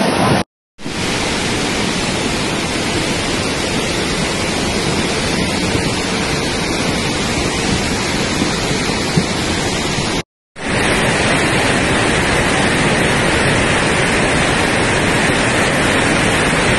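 Steady, loud rushing noise of heavy rain and fast-flowing muddy floodwater. It breaks off into silence twice for a moment, about half a second in and about ten seconds in.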